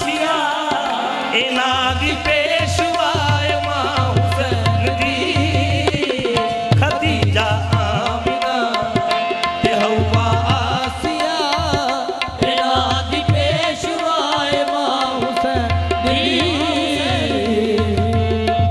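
Qawwali music: harmoniums hold a steady note under wavering melodic singing, while hand drums keep a steady beat.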